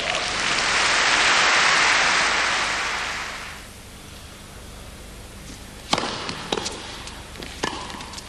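Tennis crowd applauding after a point, swelling and then dying away within about three and a half seconds. This is followed by a quieter arena with a few sharp knocks near the end.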